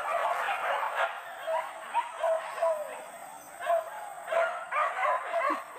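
Boar-hunting dogs yelping and barking in a rapid string of short, high calls that come in bunches.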